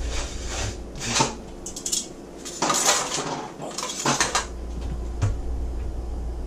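A metal spatula and fork scraping and clinking against a metal baking pan while lifting out pieces of baked fish, in several short scrapes and clicks.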